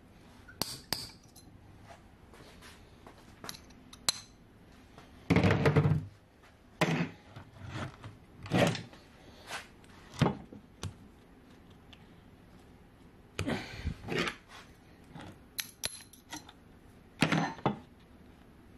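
Steel differential parts handled and taken apart by hand: the carrier with its ring gear and the LSD centre knocking and clinking against each other and the bench in a string of irregular metallic clanks, the loudest about five seconds in.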